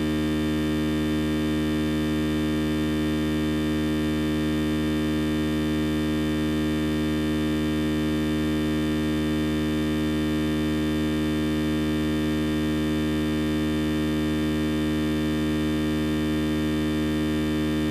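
A loud, steady, unchanging electrical hum with many overtones, holding one level throughout.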